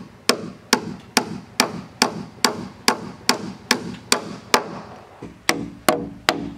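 Claw hammer driving nails through a metal hurricane clip into a wooden rafter: steady, sharp blows a bit more than two a second, pausing for about a second near five seconds in before starting again.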